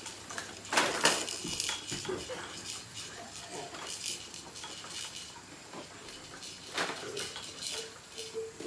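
Clicking and clattering of a Fisher-Price baby jumper's plastic toys and frame in irregular bursts as the baby moves in it, loudest about a second in and again near seven seconds.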